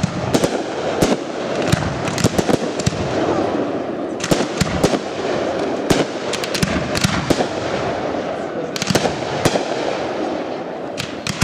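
Aerial firework shells bursting in a display: a rapid series of sharp bangs coming in clusters, over a continuous rumble.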